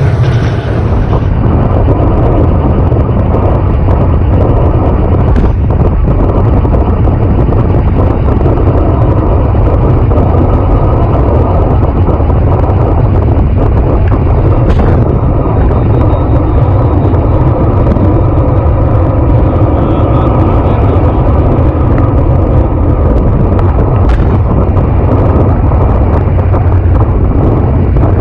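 Steady wind rush on the microphone of a bike-mounted camera at about 55 to 60 km/h, mixed with tyre and road noise.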